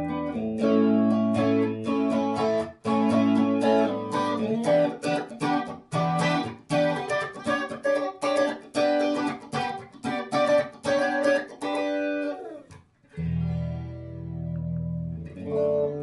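Electric guitar played through a Strymon Deco tape-flanging pedal into a Tone King Imperial amp: picked chords and quick runs of single notes, a short break about thirteen seconds in, then chords left to ring.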